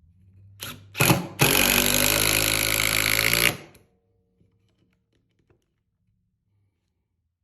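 Cordless impact driver fitted with a Makita XPS Phillips #2 bit, driving a 2-inch galvanized deck screw: two short blips on the trigger about a second in, then about two seconds of steady rapid hammering before it stops.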